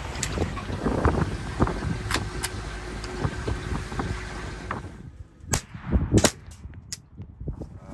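Wind and water noise in an open boat, with scattered knocks. About five seconds in the noise drops away sharply, leaving a few sharp clicks and knocks.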